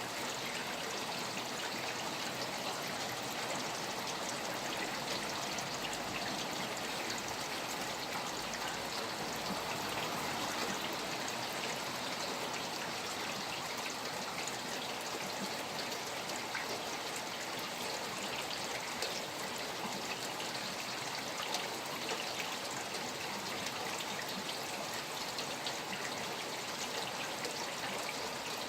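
Rain falling beside running water: a steady, even wash of water with many tiny drop ticks.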